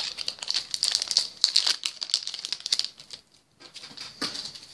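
A trading-card booster pack wrapper crinkling as it is handled and torn open by hand: dense crackling for about three seconds, a short lull, then one more brief crinkle near the end.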